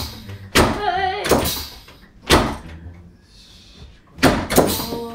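Chiropractic drop table thudding sharply about five times at irregular intervals as its padded sections drop under the practitioner's thrusts on the lower back during a spinal adjustment. A short cry from the patient comes about a second in.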